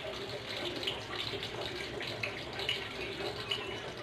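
Lumpia shanghai (Filipino spring rolls) frying in hot oil in a pan: a steady sizzle with small crackling pops.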